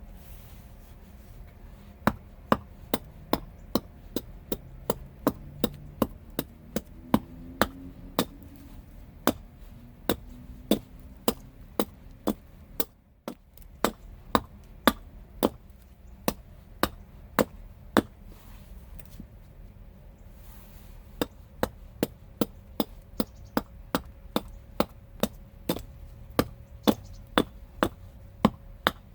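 Repeated hammer blows in a steady rhythm of about two strikes a second, with a brief pause about halfway and a longer pause of a couple of seconds later on before the hammering resumes.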